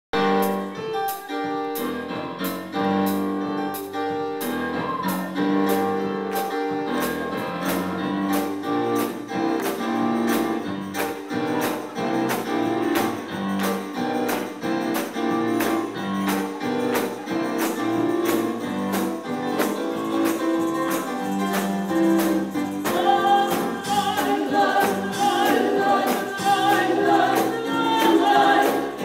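Church choir singing gospel music, with percussion keeping a steady beat. The voices grow fuller and brighter about two-thirds of the way in.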